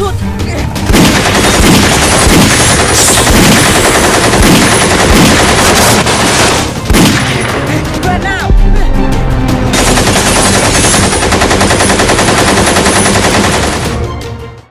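Automatic gunfire in two long sustained bursts. The first runs from about a second in to about seven seconds, and the second from about eight and a half seconds until it fades near the end.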